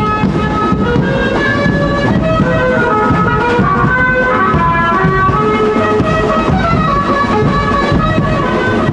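Loud live procession music from a street band: a melody of held, shifting notes over continuous heavy drumming.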